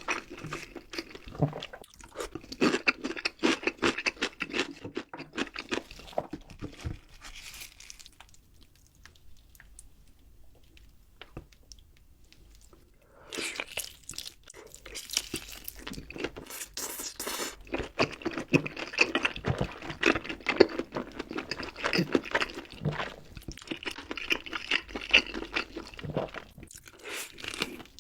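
Close-miked chewing and crunching of food: many quick crackles and squelches, easing off to a faint pause about eight seconds in, then starting again about five seconds later and going on dense until near the end.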